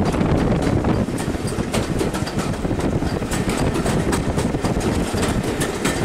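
Railway carriage running along the track, heard from on board: a steady rumble of wheels on rail with many sharp clicks and knocks scattered through it.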